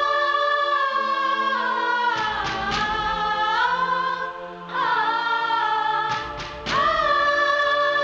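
Background film score: wordless choir-like voices in long held chords over low sustained notes, swelling again about five and about seven seconds in.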